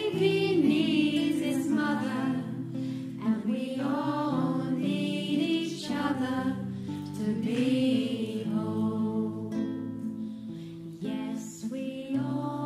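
A group of voices singing a devotional song together, with melodic sung phrases over steady held instrumental notes.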